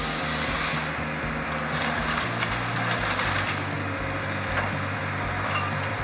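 Timber cracking and splintering under heavy logging machinery, over a steady haze of machine noise.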